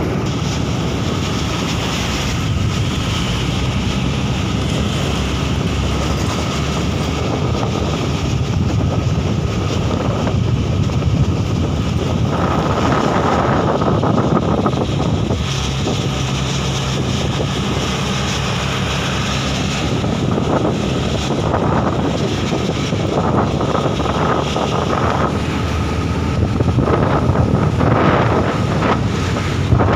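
Truck engine running steadily under a low drone, with wind noise on the microphone.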